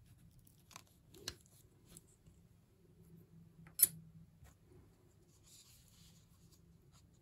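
Rubber ink sac being cut to length with a blade pressed against a wooden board: a few faint crunching clicks about a second in, then one sharp click just before four seconds in.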